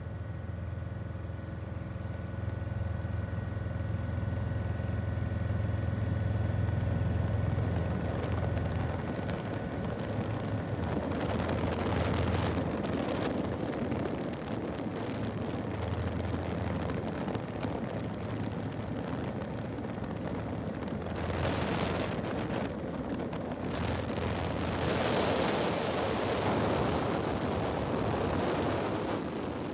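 Steady drone of an aircraft engine heard from on board, with a low hum and faint steady tones. Rushes of wind noise swell about a third of the way in and again near the end.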